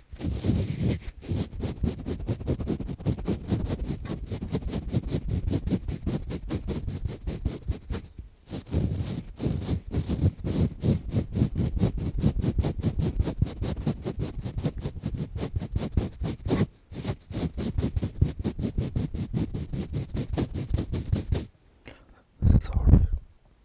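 ASMR ear-cleaning sounds: fast, close-up scratching and rubbing against the microphone, broken by a few short pauses, stopping about two seconds before the end.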